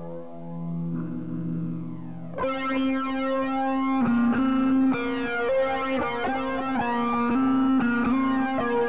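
Electric guitar played through a fuzz effect: a held, ringing chord, then about two seconds in a line of long sustained notes stepping from one pitch to the next.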